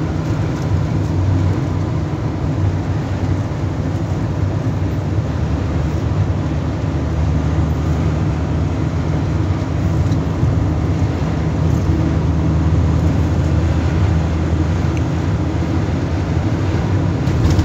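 Steady road noise inside a moving vehicle's cabin at cruising speed: an even low rumble of engine and road, with a hiss above it.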